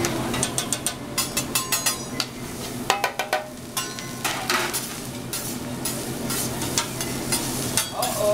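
Metal spatula scraping and clicking on a flat-top steel teppanyaki griddle as rice and egg sizzle, with quick irregular clacks over the frying and a short ringing clang about three seconds in.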